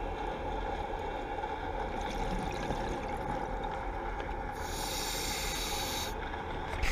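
Scuba diver's regulator breathing heard underwater: a steady low rumble, with a breath hissing through the regulator from about four and a half to six seconds in.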